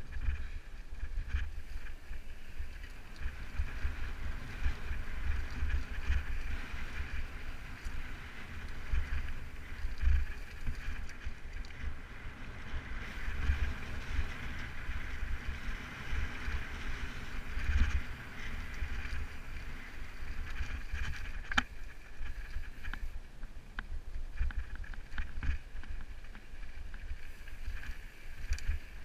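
Wind gusting on the camera microphone as a mountain bike rolls along rocky dirt singletrack, with the hiss and rattle of the tyres and bike on the trail. A single sharp click comes about three-quarters of the way through.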